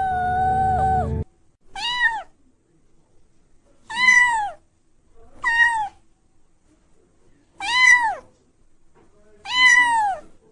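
Kittens meowing: one long, high meow that ends about a second in, then five short, high meows that rise and fall, about two seconds apart. A low rumble sits under the first meow.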